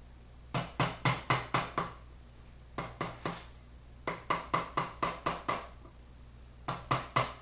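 A mallet tapping a wood chisel as it chops into a block of wood. The taps come in quick runs of three to seven, about four a second, with short pauses between runs. Each is a light knock.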